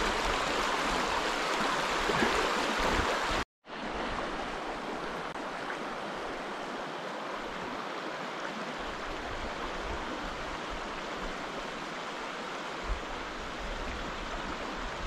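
River water rushing over rocks and logs, a steady hiss. About three and a half seconds in it cuts out for a moment and comes back quieter and steadier.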